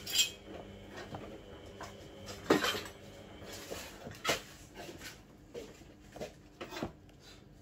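Kitchen utensils clinking and knocking against a container: a few separate, irregular knocks, the sharpest about a quarter second in and again about two and a half seconds in.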